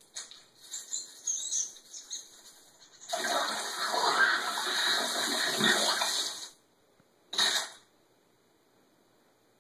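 Cartoon sound effect of blood gushing and spraying, a loud rushing, splashing liquid noise lasting about three seconds, played from a TV speaker. A few short quieter sounds come before it, and a brief burst follows near the end.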